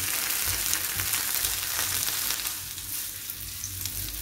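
Sausages sizzling in melted butter on a flat dosa griddle (tawa): a steady frying hiss with fine crackles, easing a little about halfway through.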